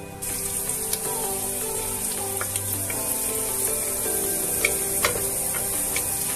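Chopped onions and garlic sizzling as they fry in oil in a nonstick pan, starting suddenly just after the start, with a few sharp taps and scrapes of a wooden spatula stirring them.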